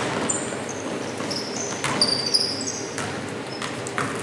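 Basketball play on a court: several short, high sneaker squeaks and a few thuds of the ball bouncing, the loudest about two seconds in, over a steady crowd murmur.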